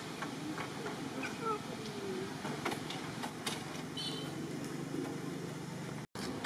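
Outdoor background: a steady low hum under an even hiss, with scattered faint clicks and a few short chirps, one higher chirp about four seconds in. The sound cuts out completely for a moment near the end.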